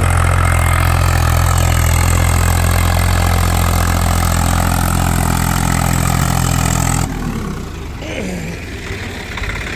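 Swaraj 843 XM tractor's three-cylinder diesel engine running steadily under load while pulling a harrow through hard soil. About seven seconds in, the sound cuts suddenly to a quieter, thinner engine sound.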